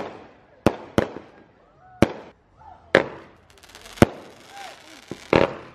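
Consumer aerial fireworks going off: a string of sharp bangs about a second apart, then a dense crackle with a louder burst near the end.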